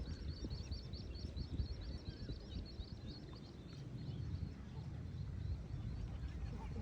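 A bird calling a rapid series of high chirps, about six a second, for the first half, then stopping, over a low rumble of wind or handling noise.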